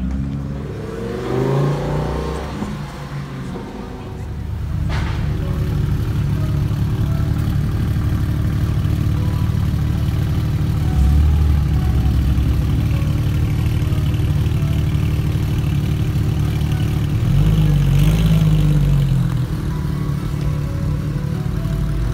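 Sports car engines running at low speed in slow street traffic, with a steady low drone. A rising rev comes a second or two in, and a short rev climbs and falls back about seventeen seconds in.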